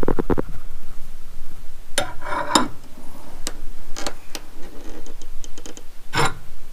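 Sharp metallic clicks and knocks from hand tools on porch swing anchor hardware: a quick run of four or five clicks at the start, scattered single clicks, a fast run of small ticks a little past the middle, and a louder knock near the end.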